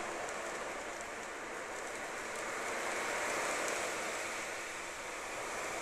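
Ocean drum: beads rolling across the drumhead in a wave-like wash that swells about three seconds in and eases off again.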